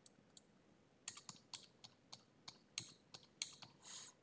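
Faint computer keyboard typing: a dozen or so short, irregular key clicks, mostly in the second half, after two light clicks at the start.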